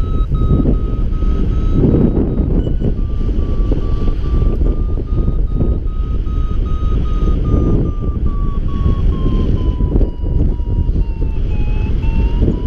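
Paragliding variometer beeping in a fast run of short beeps, the tone that signals the glider is climbing in lift, its pitch sinking a little near the end and then rising again. Heavy wind noise on the microphone from the airflow in flight runs underneath.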